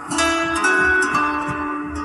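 Samsung Galaxy phone ringtone playing: a melody of plucked notes over a soft low beat, with a brighter run of notes starting just after the start.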